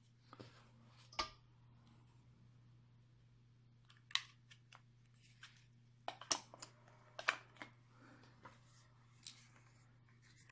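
A USB wall charger and its plastic cable plugs being handled at a wall socket: a few sharp plastic clicks and knocks as the charger goes into the socket and the cable is connected, with a quick cluster of clicks a little past the middle.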